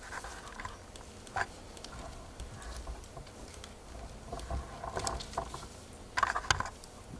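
Paper rustling as pages of a booklet are handled and turned, in scattered soft crackles with a louder rustle about six seconds in.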